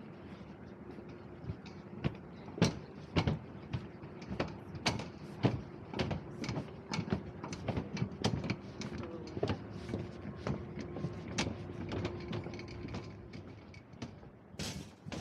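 Train running, with an irregular run of sharp clicks and knocks over a steady hum, and a short hiss near the end.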